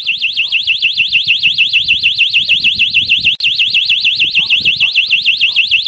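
Loud electronic warbling siren of an elephant early warning system, its pitch sweeping up and down about seven times a second, sounding because an elephant has been detected. It cuts out for an instant about three and a half seconds in.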